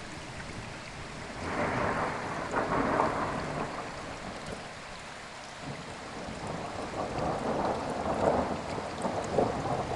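Thunder rumbling over steady rain. It swells about a second in, dies away, and swells again about seven seconds in.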